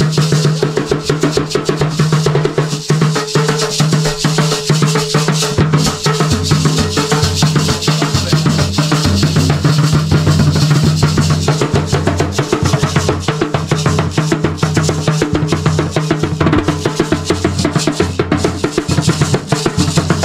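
Garifuna hand drums played together by a group in a fast, dense rhythm, rapid strokes over deep, booming drum tones without a break.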